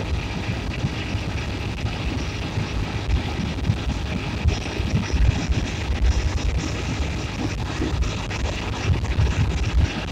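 Wind buffeting the microphone on a moving motorcycle: a steady rush of air with gusty low rumbling, over the road noise of the ride.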